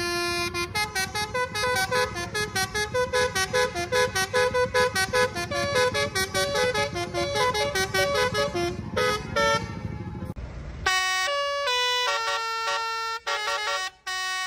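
Basuri telolet bus horn playing a fast melody of short, stepping multi-tone notes over low engine rumble. About eleven seconds in, the sound cuts abruptly to a cleaner run of longer held notes without the rumble.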